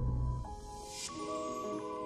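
Soft background music of held, sustained chords that change about a second in.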